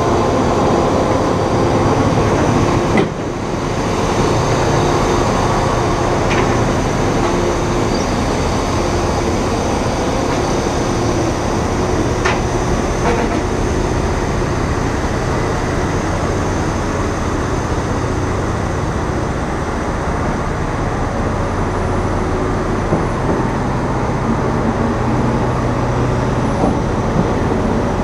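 Heavy truck's diesel engine running with tyre and road noise while driving, heard from outside the cab. A brief knock about three seconds in.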